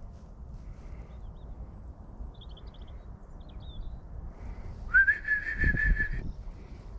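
A single whistle about five seconds in that rises briefly and then holds one pitch with a slight waver for just over a second. Faint bird chirps come a few seconds before it.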